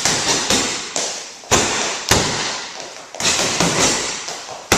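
A quick, uneven series of punches and kicks thudding into a heavy bag, about eight strikes, each followed by a short echo in the room.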